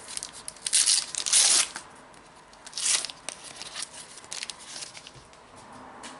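A Panini Adrenalyn XL trading card packet being torn open: a loud rip about a second in, another about three seconds in, then the wrapper crinkling in a few smaller crackles.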